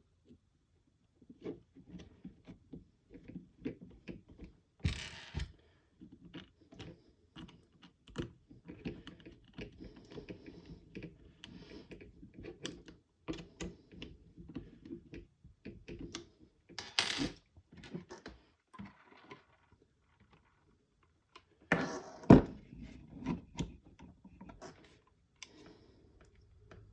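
Small 3D-printed plastic parts and screws being handled and fitted by hand: irregular clicks, taps and knocks, with a few louder knocks. The sound stops for about two seconds roughly three-quarters of the way through.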